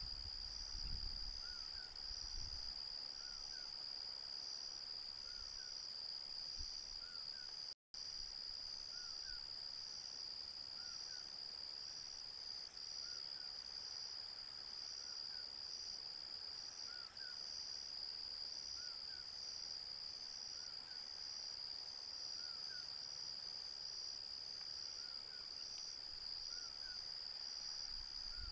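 Night insect chorus: a steady high-pitched trill with a slow pulsing. A fainter short chirp repeats every two seconds or so beneath it.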